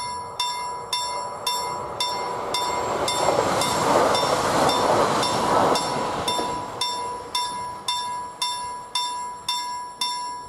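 Swedish level-crossing warning bell striking steadily, a little under two strokes a second, with only one bell ringing; the other sounds dead. In the middle a passing train's rushing rail noise rises, peaks and fades under the bell. The bell stops at the very end.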